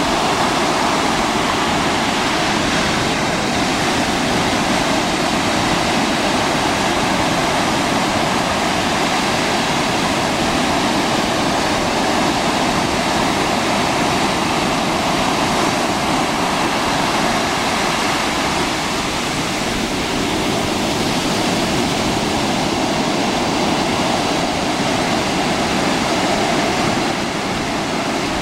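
Ocean surf breaking and washing up a sandy beach: a continuous, loud rush of water that eases slightly now and then.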